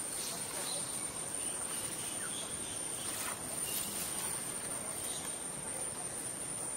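Insects calling in the forest canopy: a steady, high-pitched, unbroken tone over a low hiss of background noise.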